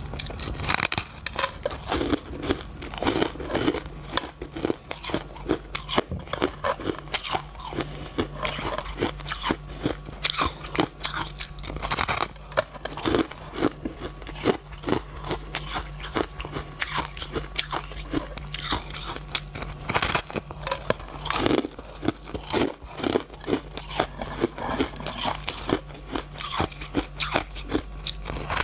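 Close-miked biting and chewing of a block of compressed shaved ice, crushed between the teeth in rapid, irregular crunches.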